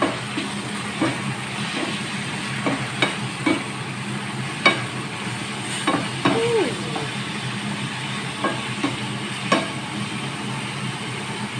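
Chicken pieces frying in a non-stick pan, stirred with a wooden spatula: a steady sizzle with irregular knocks and scrapes of the spatula against the pan.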